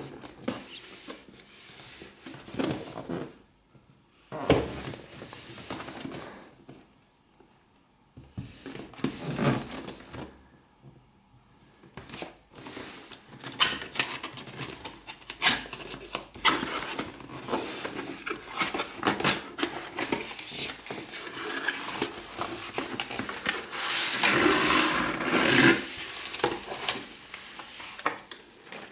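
Cardboard packaging being handled and opened by hand: flaps and inserts pulled open, scraping and rustling, with a few sharp knocks. A longer stretch of rustling comes near the end.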